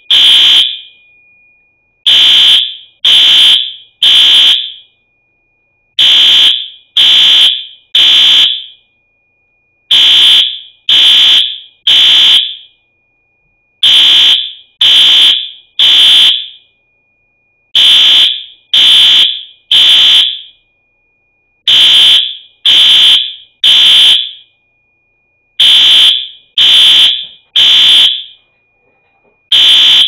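Fire alarm sounding the temporal-three evacuation pattern: three loud, high-pitched beeps about a second apart, then a pause, repeating every four seconds. It is a false alarm, set off by the sprinkler system's water-flow switch tripping.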